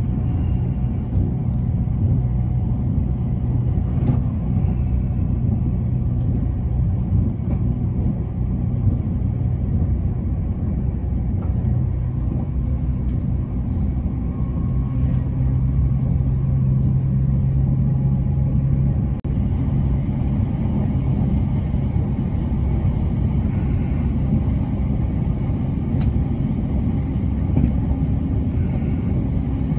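Cabin noise of an E353 series electric limited express train running at speed: a steady low rumble with a low hum that steps up in pitch about halfway through and drops back a few seconds later, and a few faint clicks.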